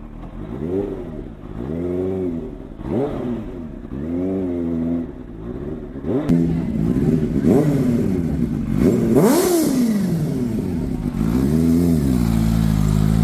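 Kawasaki Ninja H2's supercharged inline-four engine revved while standing: a string of short throttle blips, each rising and falling in pitch, then longer, higher revs in the second half. One high rev about nine seconds in ends with a brief hiss.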